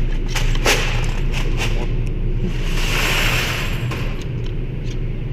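A few short, sharp knocks scattered over a steady low rumble, most of them in the first couple of seconds.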